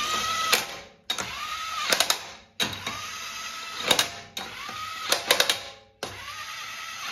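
Cordless impact wrench running lug nuts onto a wheel in short bursts, one nut after another: five times the motor whines up and spins a nut down, then hammers briefly as the nut snugs against the wheel.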